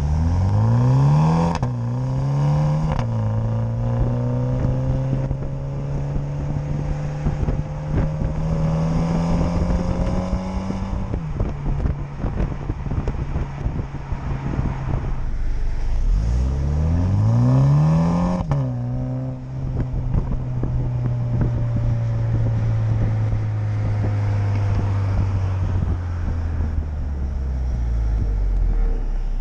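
2020 MINI John Cooper Works Countryman's turbocharged four-cylinder exhaust under hard acceleration, heard close to the tailpipes: the pitch climbs quickly and drops back at each upshift, then settles into a steady cruise. This happens twice, with the second pull starting a little past halfway.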